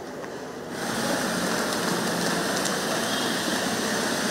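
Steady rushing background noise of an outdoor crowd scene, with no clear single source, stepping up louder about a second in.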